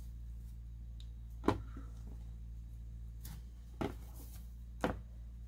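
Handling noise from a cloth dust bag being untied on a tabletop: faint rustles and three sharp knocks, over a steady low hum.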